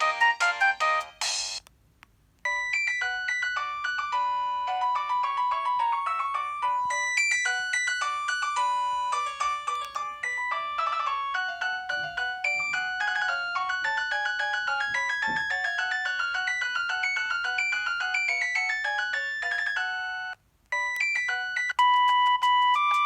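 Preloaded ringtones on a ZTE F102 mobile phone playing one after another: one electronic tune ends about a second and a half in, and after a short pause a longer melody with several notes at once plays until near the end, when a brief gap leads into the next ringtone.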